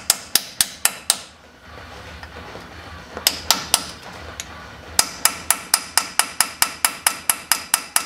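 Hammer tapping a small stainless steel punch around a Dana 44 front spindle to break it loose from the steering knuckle, each blow a sharp metallic ring. Quick taps for about a second, a pause, three taps, then steady tapping at about four a second from halfway on.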